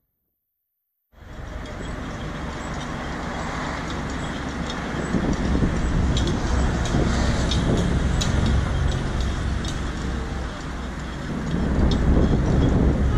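Steady low rumble of idling engines and traffic around a car stopped in a queue at a traffic light, with faint scattered ticks. It cuts in after about a second of dead silence.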